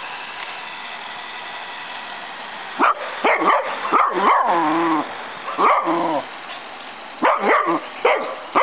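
Pitbull–dachshund mix dog barking in short bursts, mixed with yelps and whines that slide in pitch, starting about three seconds in and coming in several clusters. Underneath, the small electric motor of a toy RC helicopter hums steadily.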